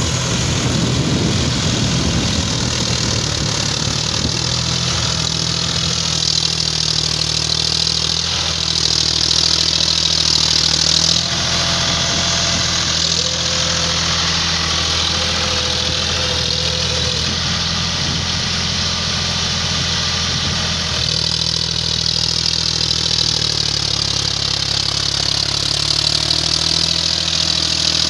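John Deere 5050D tractor's three-cylinder diesel engine running steadily under load while it drives a rotavator through wet paddy soil. The engine note shifts a little about eleven seconds in and again about ten seconds later.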